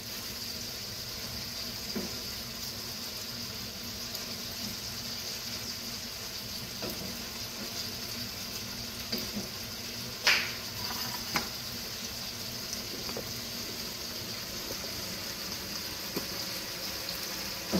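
Tofu and vegetable stir-fry simmering in its sauce in a skillet over a gas flame, a steady sizzling hiss, with a few light clicks and a brief scrape of the wooden spatula against the pan about ten seconds in.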